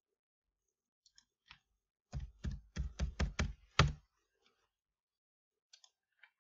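Computer keyboard typing: a quick run of about seven keystrokes entering a number, the last one the loudest. A few faint clicks come before and after.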